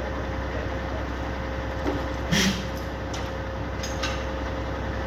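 Crane truck's engine running steadily during a lift, with a few light clicks and one short, louder knock about two and a half seconds in.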